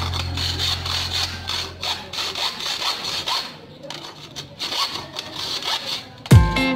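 Hacksaw cutting through a chrome metal curtain rod, in back-and-forth rasping strokes with short pauses where the stroke reverses. Background music fades out at the start and comes back in loudly with a beat near the end.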